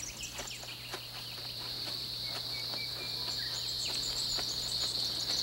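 Chorus of insects making a steady high-pitched drone that grows slowly louder.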